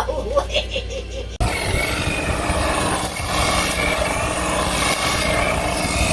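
An engine running steadily, cutting in suddenly about a second and a half in, with a low pulsing throb and a faint steady whine.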